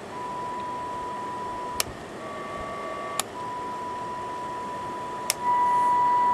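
A steady high test tone from the radio transceiver's speaker during its lower-sideband alignment, broken by three sharp switch clicks. Between the first two clicks the tone sits slightly higher in pitch, and after the last click it comes back louder.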